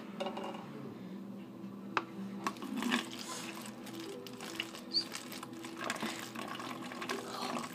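Vinegar being poured from its bottle into a plastic water bottle, a steady trickle of liquid filling the bottle.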